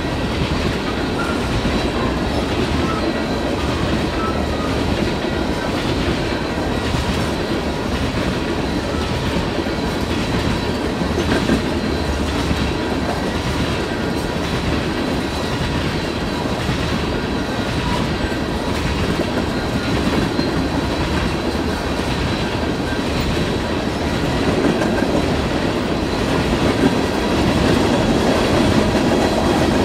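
Freight train cars rolling past: a steady rumble with wheels clacking over the rail joints, growing louder near the end.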